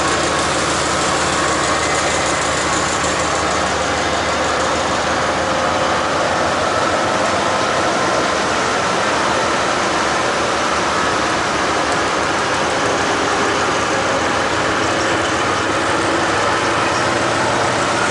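Railway locomotive running steadily close by: a loud, even noise with a few faint steady tones through it, unchanging throughout.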